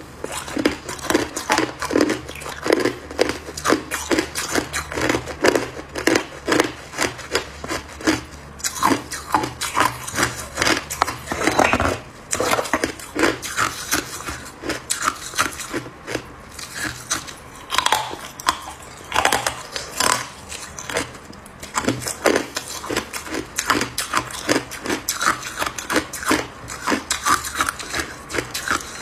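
Hard clear ice being bitten and chewed, a fast, uneven run of crunches, several a second.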